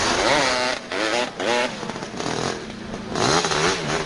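Sport quad (ATV) engine revving hard under load on a sand climb, its pitch rising and falling as the throttle is worked, with brief drops about a second in and again near three seconds.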